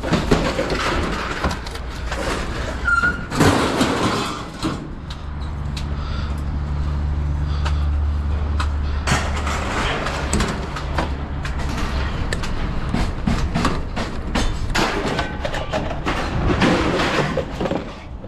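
Rummaging through junk in an open bin: irregular clattering, knocking and rustling of items being moved and handled. A vehicle engine hums low through the middle stretch, fading out about ten seconds in.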